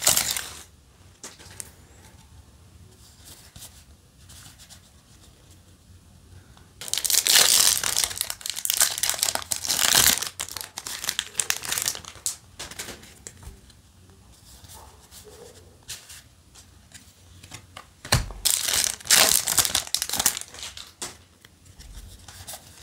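Foil trading-card booster pack wrappers crinkling and tearing in several loud bursts, with quieter stretches between.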